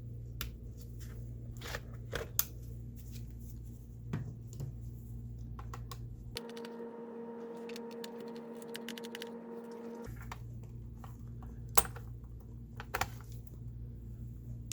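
Scattered light clicks and taps of hands working on a laptop and its small parts, over a steady low electrical hum. From about six to ten seconds in, the low hum gives way to a higher, even buzz with a run of quick faint ticks.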